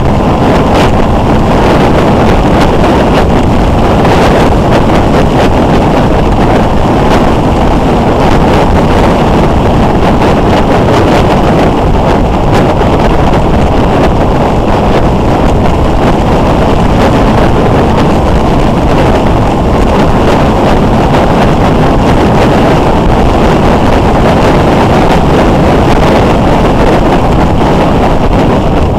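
Loud, steady wind rush on the microphone of a motorcycle-mounted camera at road speed, with the motorcycle's running noise mixed in.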